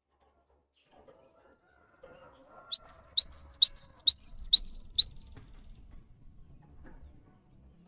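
Cinereous tit singing a quick run of about six repeated two-note phrases, each a rising whistle followed by a higher dipping note, about two phrases a second. It starts about three seconds in and stops after about two seconds.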